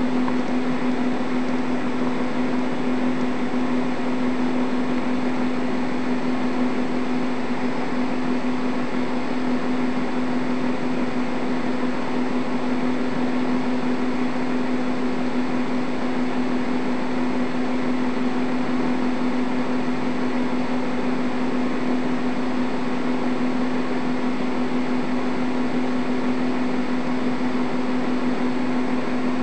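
Steady machine whir with a constant low hum and a thin high whine, unchanging throughout.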